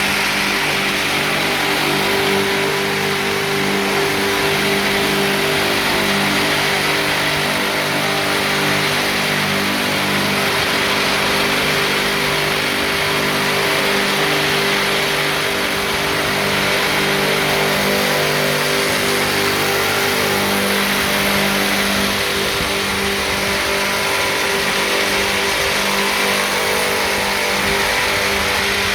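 Four-sided wood milling machine running steadily: its four 3000 rpm electric motors and cutter heads produce a constant hum with a dense high whirr and no let-up.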